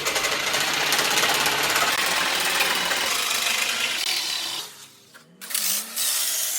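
Small electric power saw cutting through wood with a steady buzzing run, stopping about four and a half seconds in and starting again for a shorter cut near the end.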